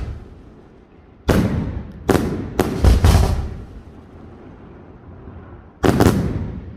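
Aerial firework shells bursting in loud bangs, four in quick succession starting about a second in and another near the end, each followed by a rolling echo.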